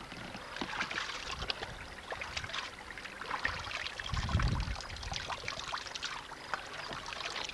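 Spring water trickling and splashing as cupped hands scoop it from a shallow pool among stones, with many small splashes and drips. A brief low rumble comes about four seconds in.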